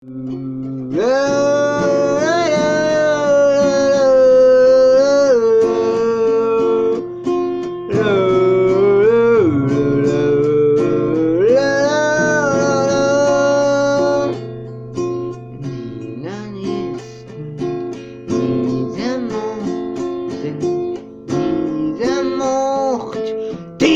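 Instrumental song intro led by guitar. For the first half or so, long held melody notes waver slightly in pitch; after that come shorter plucked notes.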